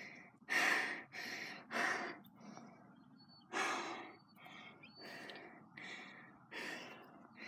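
A boy breathing heavily close to the microphone: about eight separate, irregular breaths with short gaps between them.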